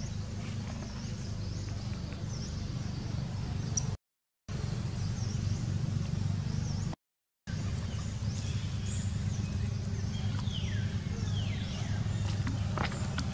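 Outdoor ambience of birds chirping over a steady low rumble, with a few falling high calls about ten seconds in. The sound cuts out to silence briefly twice, about four and seven seconds in.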